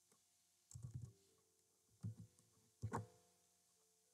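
Faint clicks and thumps of a computer keyboard being typed on, in three short bursts about a second apart, over low room hiss.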